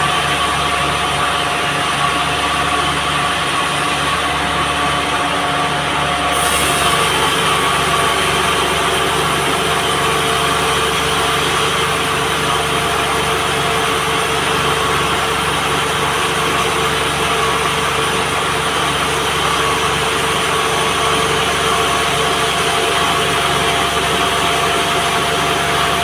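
Band sawmill running steadily with a constant mechanical drone and several steady tones; about six seconds in the tones shift and a higher hiss joins.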